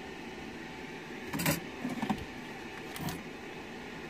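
Small hard plastic and metal clicks and clinks as the speedometer needle is pulled off its gauge motor on the instrument-cluster board and parts are handled on the bench. They come in three short clatters, about a second and a half in, at two seconds and at three seconds, over a steady fan hum.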